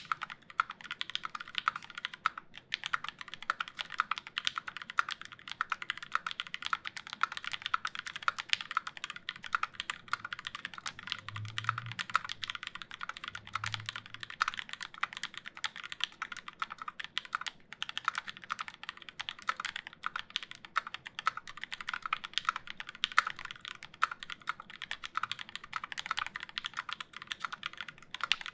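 Fast, continuous typing on a Square.O custom mechanical keyboard with lubed linear switches (C3 Tangerine v2 stems in Gateron Milky housings), GMK keycaps and a 4 mm aluminium plate, giving a dense stream of key clacks. Two low thuds come about halfway through.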